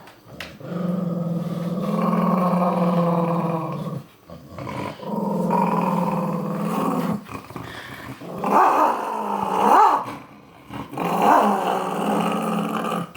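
A dog growling in several long, steady growls of a few seconds each, with higher, wavering growls in the middle. It is guarding a bone from another dog.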